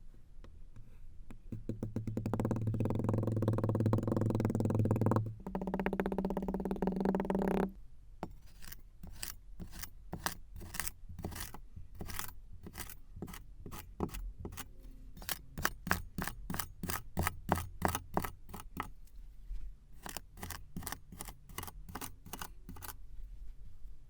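A loud buzzing hum that steps up in pitch about five seconds in and stops near eight seconds. It is followed by kinetic sand crunching in quick, crisp strokes, about two to three a second.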